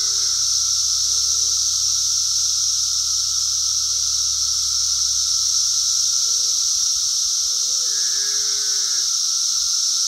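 Loud, steady chorus of cicadas droning in the trees. About eight seconds in, a cow moos once, with a pitch that rises and falls.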